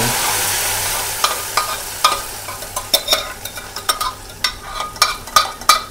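Cooked masoor dal hitting a hot kadhai of browned onions for the tadka: a loud sizzle that fades away over about three seconds. Then a spoon scrapes and taps against the steel pot as the last of the dal is scooped out, sharp ringing metal clicks about three times a second.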